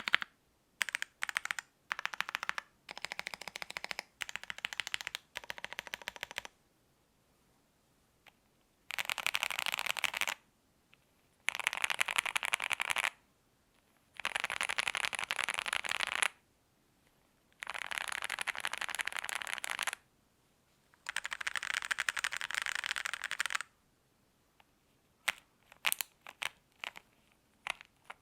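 Typing on a Zoom65 EE mechanical keyboard with lubed Alpaca V2 linear switches on a polycarbonate plate: five bursts of fast key clatter, each a second and a half to two and a half seconds long with short pauses between them, after shorter runs of typing. Near the end come separate single keystrokes.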